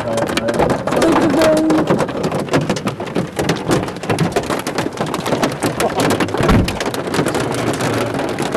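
Hail and rain pelting a car's roof and windows: a dense, continuous rattle of sharp impacts, with a single low thud about six and a half seconds in.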